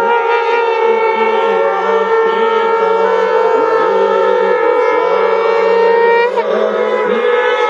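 Many conch shells (shankh) blown together in a massed shankhnaad: several steady, overlapping held notes sounding as one long blast. About six seconds in, one of the higher notes slides down and breaks, and the rest keep sounding.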